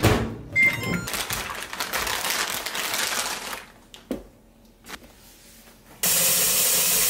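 A microwave-oven door shuts with a knock, followed by a short electronic beep. A plastic produce bag rustles as apples are handled, and a light knock follows as fruit is set down. In the last second, water starts running from a kitchen tap in a steady hiss.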